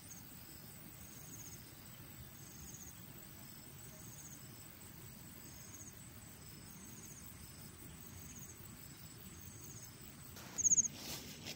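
An insect chirping in short, high-pitched pulsed trills about once a second over a low steady background noise. Near the end, a louder sharp crackle.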